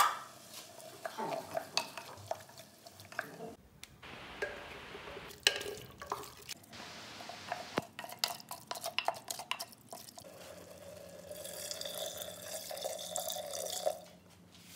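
Wooden spoon stirring and scraping chopped onion, tomato and spices in a clay pot, with scattered knocks against the pot's sides. About ten seconds in, water is poured steadily from a ceramic jug into the pot for a few seconds.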